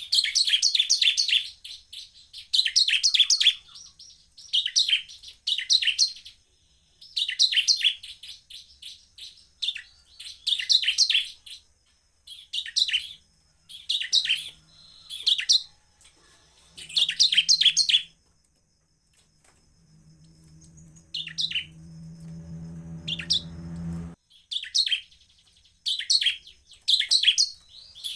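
Ciblek (bar-winged prinia) singing: rapid phrases of high chirping notes, each about a second long, repeated every couple of seconds with a short pause around two-thirds of the way through. During that pause a low steady hum grows louder for a few seconds, then cuts off suddenly.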